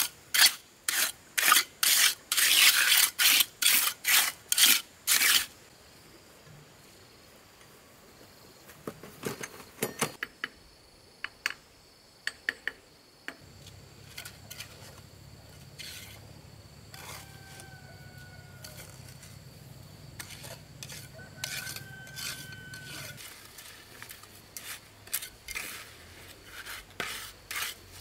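Repeated rasping, scraping strokes of hand work, about two and a half a second for the first five seconds. Scattered clicks and taps follow, and the strokes return near the end.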